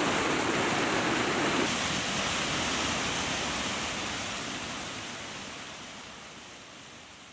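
Steady rush of a waterfall and fast creek water pouring into a pool. The sound changes abruptly about two seconds in, then slowly fades out.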